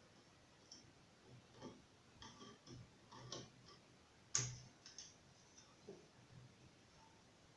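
Faint, scattered small clicks and taps of hard parts being handled during a laptop hard-drive swap, with one sharper click about four and a half seconds in.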